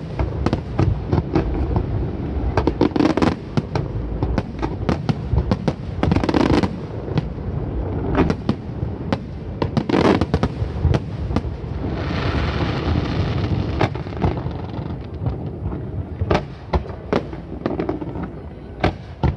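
Aerial fireworks shells bursting in a dense, continuous barrage: many sharp bangs and pops in quick, irregular succession, with a thicker stretch of noise about twelve seconds in.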